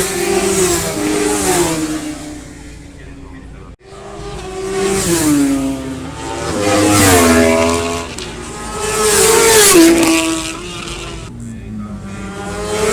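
Road-racing motorcycles going past at speed, one after another. Each engine note swells to a peak and drops in pitch as the bike goes by. The sound cuts off abruptly a little under four seconds in, then the passes resume.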